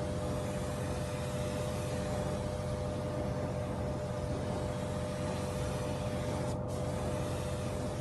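Steady machine hum with a constant hiss and two steady tones; the hiss cuts out for a moment about two-thirds of the way through.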